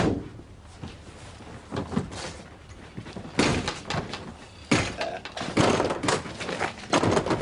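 Rear doors of an ambulance being unlatched and swung open: a quiet start, then a series of sharp metal clunks and knocks from about three and a half seconds in.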